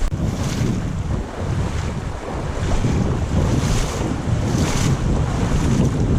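Strong wind buffeting the microphone with a heavy low rumble, the loudest sound throughout. Over it comes a swish of water about once a second.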